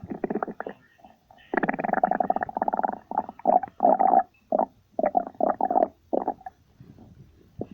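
Stomach growling from hunger: one long growl about a second and a half in, then a run of short gurgles.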